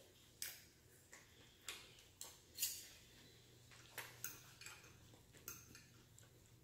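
Metal fork clinking and scraping on a ceramic dinner plate: about ten sharp, irregular clicks, the loudest a little over two and a half seconds in.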